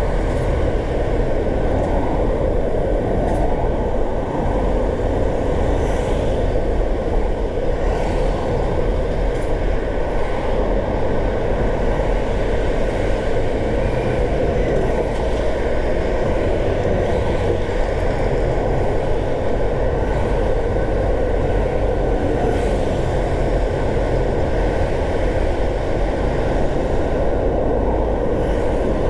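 Car driving along: steady rumble of tyres on the road with engine noise.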